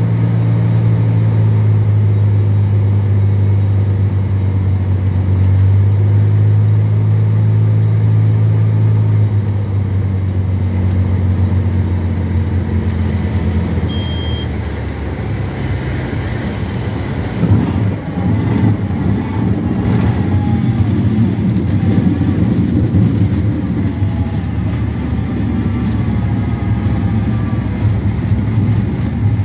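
Cessna 210L's six-cylinder engine and propeller droning steadily inside the cabin on approach, easing off about nine seconds in as power comes back, with a short high beep near the middle. A bump at touchdown a little past halfway, then the rumble and rattle of the wheels rolling out on an unpaved grass and dirt strip.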